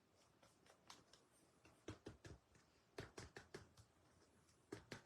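Faint, light clicks and taps of baseball trading cards being handled, in small irregular clusters.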